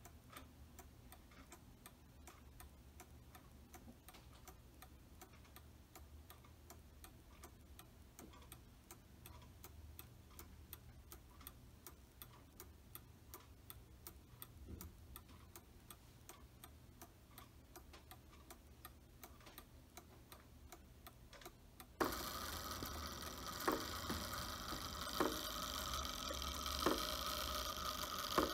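Sessions mantel clock's spring-driven brass movement ticking steadily: its escapement beating evenly with light, regular clicks. About 22 seconds in, a louder steady hiss comes up and sharper ticks stand out roughly every second and a half.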